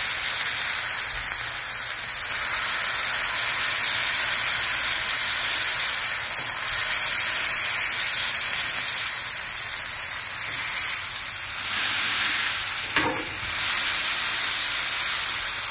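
Beef patties heaped with thinly sliced onions sizzling steadily on a hot flat-top griddle as they are pressed down with a metal spatula. A brief sharp click comes near the end.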